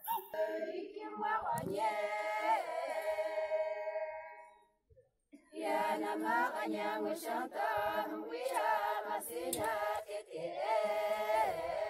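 A group of voices singing a folk song unaccompanied. It breaks off about four and a half seconds in, and then a chorus of women's voices sings on.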